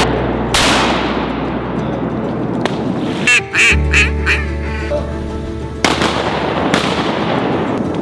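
Duck call blown in a quick string of about four quacks, about halfway through, over loud background music with a few sharp bangs.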